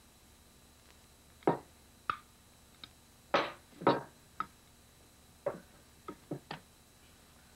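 Irregular knocks and clinks of a spoon and china plate against a table, about ten over five seconds, a few ringing briefly.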